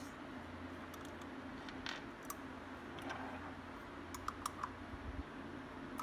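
Scattered light clicks and ticks of small metal parts as a vintage Maico pocket voltmeter's metal case is worked open by hand, with a few quick clicks close together near the end.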